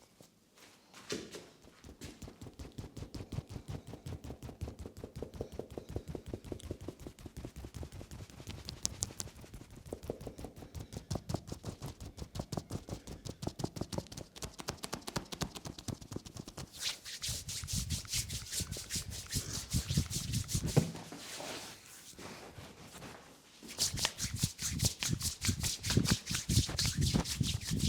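Hands rapidly and rhythmically striking a person's back and body in a percussive massage: a fast, steady run of slaps and taps. It turns sharper and brighter about two-thirds of the way through, eases briefly, then picks up again near the end.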